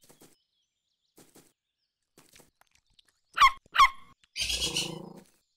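Cartoon animal vocal effects: a few faint clicks, then two short, sharp squeaking yelps about half a second apart, the loudest sounds here, followed by a longer, rougher, hissing call lasting almost a second.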